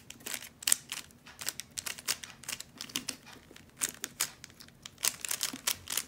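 Plastic stickerless 3x3 Rubik's cube being turned by hand through a sequence of face turns, its layers clicking and clacking in quick, irregular strokes.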